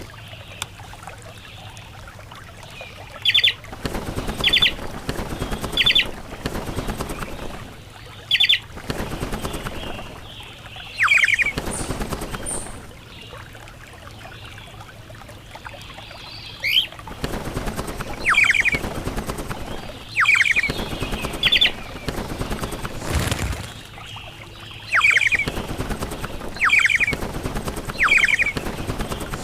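Birds giving about a dozen short, sharp calls that slide down in pitch, spaced a second or more apart, with bursts of rustling noise between them.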